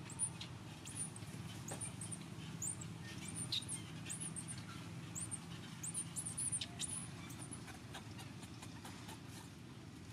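Small birds chirping in the trees: a quick series of short, very high, sweeping chirps that thins out after about seven seconds, over a low steady background hum.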